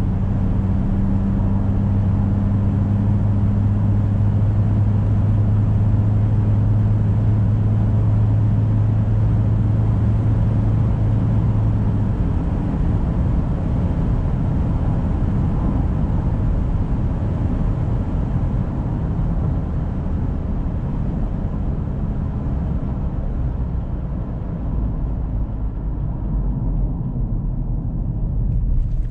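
Cabin sound of a Ford Ranger pickup on the move, heard from the driver's seat: a steady engine drone for the first dozen seconds that then drops away, over continuous tyre and road rumble. The higher hiss fades near the end.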